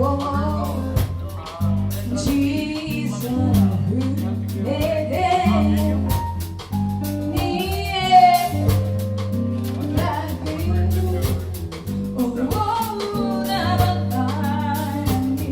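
A song: a voice singing a melody over band accompaniment with a steady bass line and drums.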